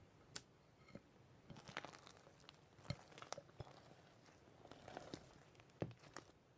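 Faint, scattered crisp crunching and crackling: a string of short sharp clicks and crinkles at irregular moments, in a quiet room.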